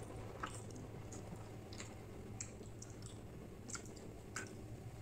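Faint, scattered wet clicks and smacks of eating rice and curry by hand, about six of them at irregular intervals over a faint steady low hum.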